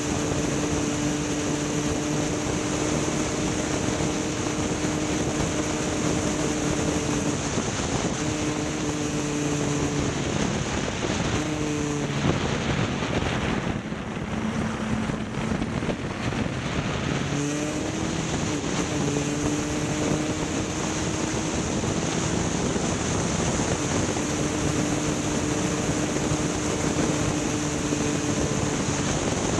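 An engine running steadily at speed under a wash of wind and rushing noise. About eleven seconds in, the revs drop and waver, then pick back up to the same steady pitch around eighteen seconds.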